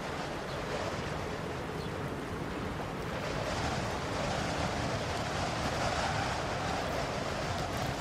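Steady rushing noise of a fast-flowing river, growing a little louder about three seconds in.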